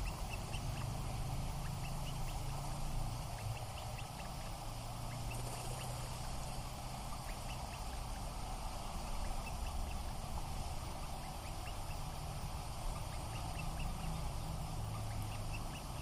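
Atlantic puffins making low, drawn-out growling calls over a steady background hiss.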